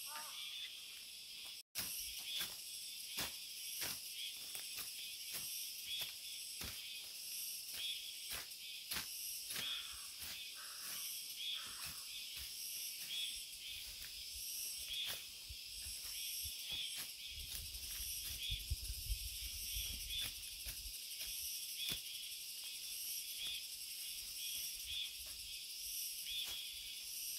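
A chorus of insects buzzing in steady, evenly repeating pulses, with scattered sharp clicks and snaps as undergrowth is cut by hand. A low rumble comes in for a few seconds past the middle.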